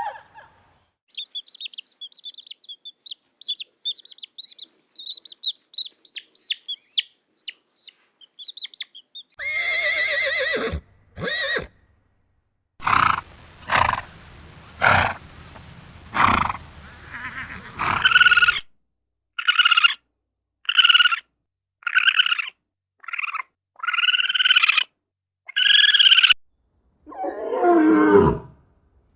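A sequence of different animal calls: several seconds of high, quick chirping like small birds or chicks, then a string of separate louder calls repeated at roughly one-second spacing, and one long call falling in pitch near the end.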